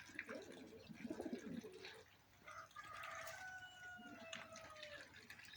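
A rooster crows once, a long held call that sags slightly in pitch, beginning about halfway through. Before it come short, low chicken clucks.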